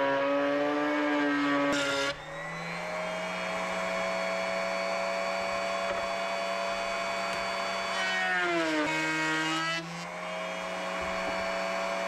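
Router mounted in a Bosch router table running at speed with a high motor whine. The pitch sags and the sound gets louder as the bit cuts a wooden strip fed along the fence, near the start and again about nine seconds in, then rises again as the router runs more freely.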